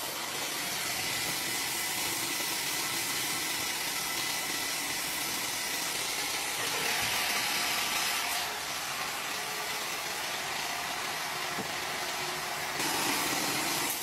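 Wood-Mizer WM4500 band sawmill running between cuts: a steady hissing machine noise while its hydraulic log handlers turn and set the log. The noise drops a little about eight and a half seconds in and rises again near the end.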